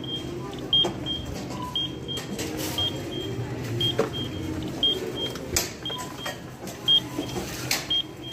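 Shopping cart rolling along a store floor, a steady low rumble with scattered rattles and clicks. A short, high electronic beep repeats about once a second behind it.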